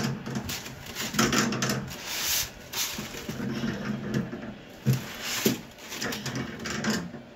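Pliers gripping and turning a brass gas fitting on the underside of a stainless steel cooktop: irregular metal scraping and rubbing, with a couple of sharp clicks about halfway through.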